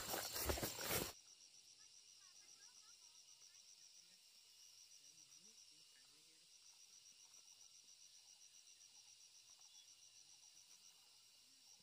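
An insect trilling with a high, rapid, even pulse that breaks off briefly about halfway through. It opens with about a second of loud noise that cuts off suddenly.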